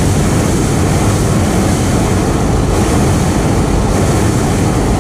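Hot-air balloon's propane burner firing in one steady, loud blast, heating the envelope to make the balloon climb.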